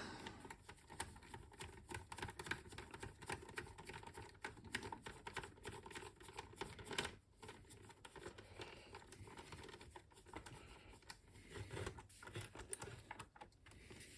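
Faint, irregular small clicks and ticks of a precision screwdriver and a Torx screw being handled and turned into the computer's case, with one louder tick about seven seconds in.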